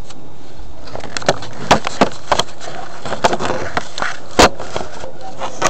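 Irregular knocks and clicks of the camera being handled and moved about, the loudest about four and a half seconds in, over a steady background noise.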